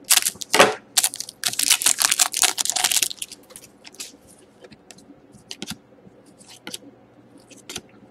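Foil wrapper of a Panini Titanium hockey card pack being cut open with scissors and crinkled, a dense run of crackles for about the first three seconds. Then the cards are thumbed through by hand, with light clicks and short slides of card against card.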